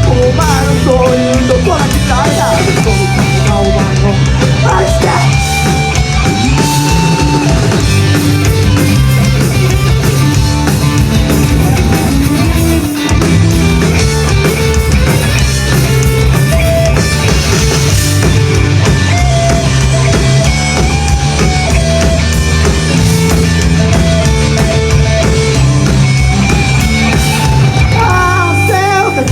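Loud live rock band playing an instrumental passage, with distorted guitars, bass and a drum kit, and a brief break about thirteen seconds in.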